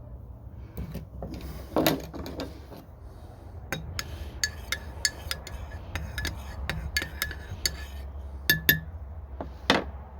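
Coffee gear clinking as it is handled: a run of sharp, irregular clinks, each with the same short ring, plus a few heavier knocks. A low steady rumble runs underneath.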